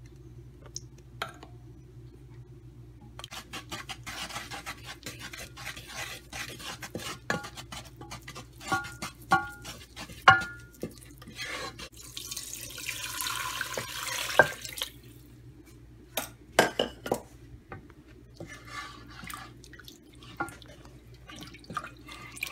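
Spatula scraping and clicking in a nonstick saucepan as flour is stirred into melted fat for a roux, then stock poured into the pan from a bowl for about two seconds. A few sharp knocks follow, then more stirring, over a steady low hum.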